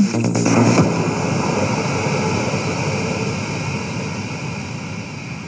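An electronic dance track's beat stops about a second in, leaving an even noise wash, like a long whoosh, that slowly fades out.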